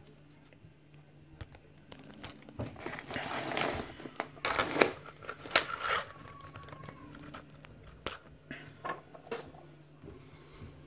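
Handling noises from taking apart a lock cylinder: scattered light clicks and rustling scrapes, busiest a few seconds in, as the pins are tipped out.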